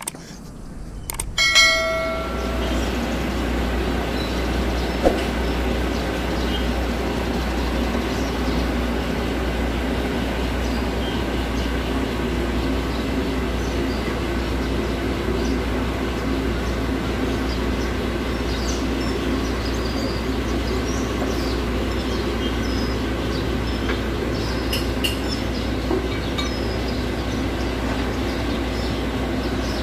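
Heavy diesel engine running steadily, a constant low drone. A short electronic chime sounds once about a second and a half in.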